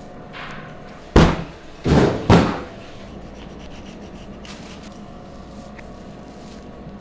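Three loud knocks with scraping: a sharp one about a second in, then two longer scraping ones close together. A faint steady hum sits underneath.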